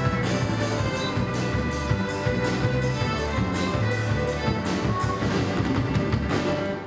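Youth orchestra of violins, cellos, congas and drum kit playing, with sustained string notes over an even percussion beat of about two strokes a second; the piece ends on its final chord at the very end.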